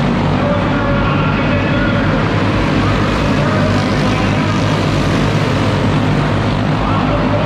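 Several clone-class go-kart engines, small single-cylinder four-strokes, running at racing speed as the karts circle a dirt oval. The result is a steady engine drone whose pitch rises and falls as the karts pass.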